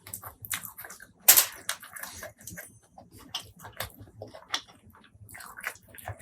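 Close-miked eating sounds: a person chewing with wet smacking and clicking mouth noises, with a loud bite a little over a second in.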